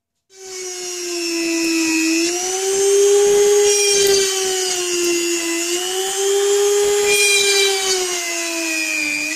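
Small power tool's motor whining steadily, its pitch sagging and recovering slowly as the load changes, with dips about two seconds in and near the end.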